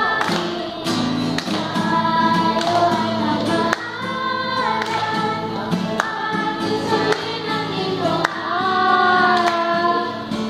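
Children's choir of girls singing a Tagalog song together, with hand claps now and then keeping time.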